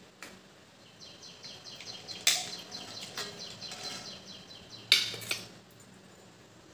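Steel ladle clinking against a metal kadai and a steel serving bowl as curry is ladled out: one sharp clink about two seconds in and a few more about five seconds in. A bird chirps in quick repeated notes in the background until about five seconds in.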